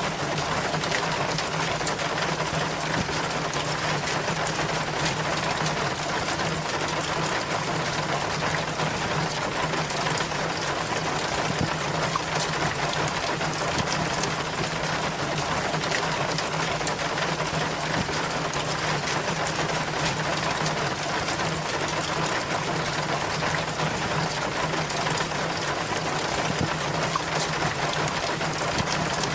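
Rainwater running down a rain chain, a steady dense splashing and trickling with many small drips.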